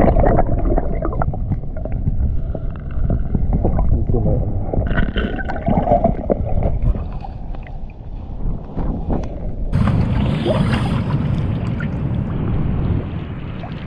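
Water sloshing and gurgling heard through a camera held underwater in a rock pool, muffled and bassy. About ten seconds in the sound turns suddenly brighter into a splashing hiss.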